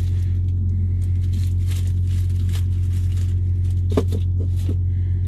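Plastic and paper wrapper rustling and crinkling as butter is unwrapped and handled, with a sharp click about four seconds in, over a steady low drone in the truck cab.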